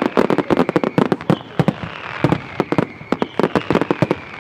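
Aerial firework shells bursting in rapid succession: a dense string of sharp bangs, several a second, over a steady crackle.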